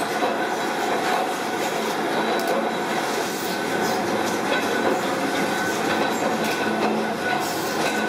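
Double-ended bench grinder running with metal door-latch parts held against its abrasive wheel, giving a steady grinding hiss over the motor's faint hum.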